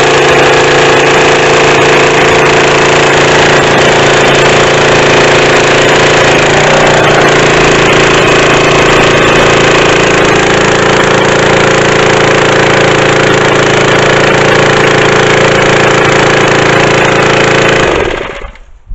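Small petrol engine of a home-built pressure washer running steadily at constant speed, then stopping near the end and dying away within about a second.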